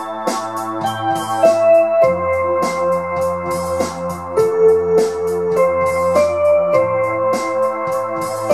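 Electronic instrumental music: sustained synthesizer and keyboard notes from a Korg microKORG and a Yamaha PSR-295 moving through a slow melody and chord changes over a bass line that shifts note every few seconds, with a steady drum-machine beat underneath.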